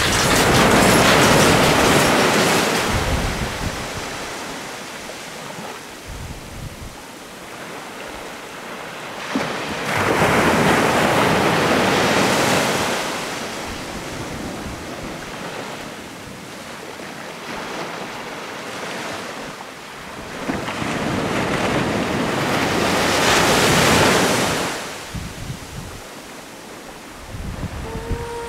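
Sea waves surging and breaking on a shore: three large swells of surf about ten seconds apart, with a quieter steady wash between them.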